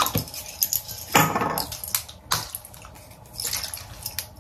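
Hair-product bottles being picked up and handled: a run of light plastic clicks and knocks with a few brief rustling swishes.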